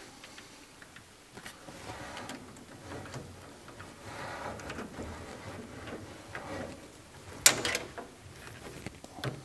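Worm-drive hose clips on a rubber radiator hose being tightened with a flexible-shaft nut driver: small clicks and scraping of the driver on the clip screws, with rubbing of the hose as it is handled. Late on there is one sharp click, the loudest sound.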